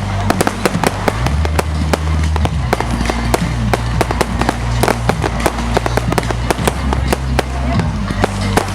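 A fireworks display with a rapid, continuous barrage of sharp bangs and crackles, several a second, over music with long-held low notes.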